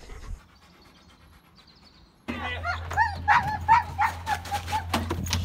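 A dog yipping and whining in quick, high-pitched calls, several a second, starting suddenly about two seconds in, with sharper barks near the end, over a steady low hum.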